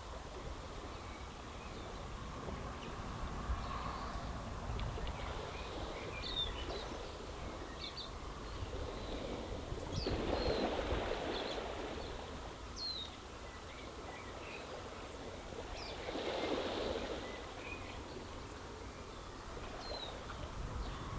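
Small waves washing over a stony beach, swelling up twice, about ten and sixteen seconds in. Short, high bird chirps are scattered throughout, over a low wind rumble.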